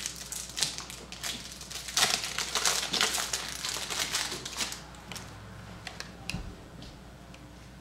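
Foil wrapper of a trading card pack crinkling as it is torn open and the cards pulled out, loudest about two to three seconds in. After that comes quieter card handling with a few light ticks.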